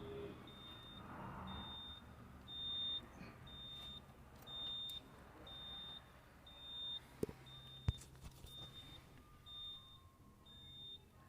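An electronic beeper sounding a short, high beep over and over in a steady rhythm, a little more than once a second, as from a vehicle's warning buzzer with the ignition on. Two sharp clicks sound about 7 and 8 seconds in.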